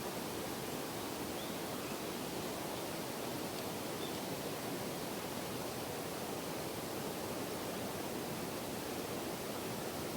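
Steady, even background hiss of outdoor ambience, unchanging throughout, with no distinct bird calls standing out.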